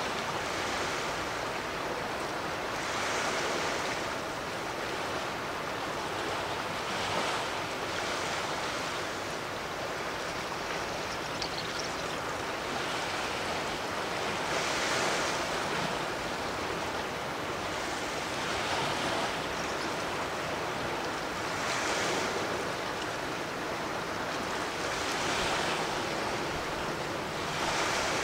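Sea waves washing in, a steady rush of water that swells up every few seconds.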